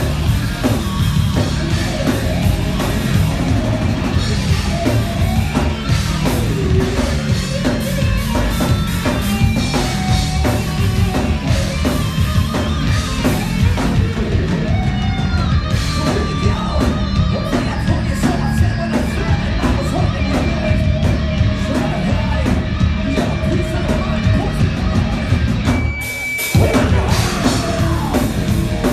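Live heavy rock band playing loud through a PA: pounding drum kit, distorted guitars and bass, with yelled vocals. About three seconds from the end the band drops out for a moment, leaving one high held note, then crashes back in.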